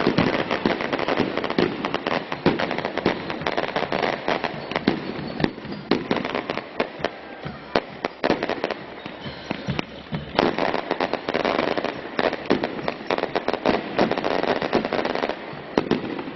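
Firecrackers going off in a long, dense run of rapid, irregular cracks and pops, with some louder bangs among them.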